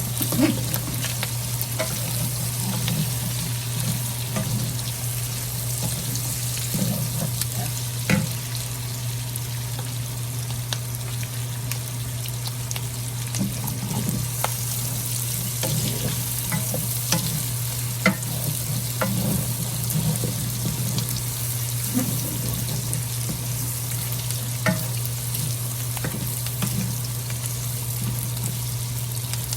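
Sautéed onions, garlic and red bell pepper strips sizzling in oil in a pan as they are stirred together. A utensil clicks against the pan every few seconds, over a steady low hum.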